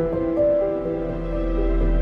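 Background music with long held notes; the deep bass drops away for most of it.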